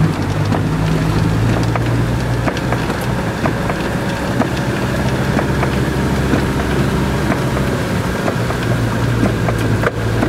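Car engine running at low speed with tyres sloshing through standing floodwater, heard from inside the car, with raindrops ticking on the windscreen and body.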